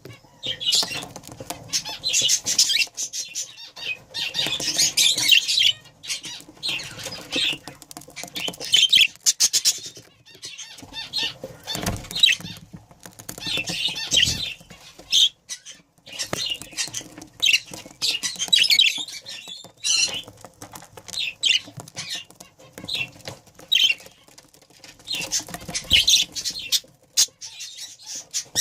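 A pair of budgerigars chattering and chirping in repeated bursts, high-pitched and busy, with short pauses between.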